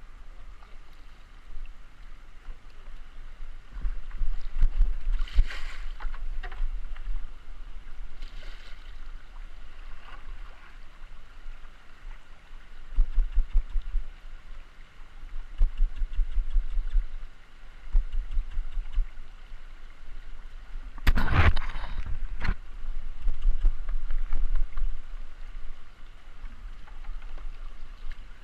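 River water running around a kayak, with paddle splashes and a few sharp knocks, the loudest about 21 seconds in. Low rumbling gusts of wind or handling noise on the microphone come and go.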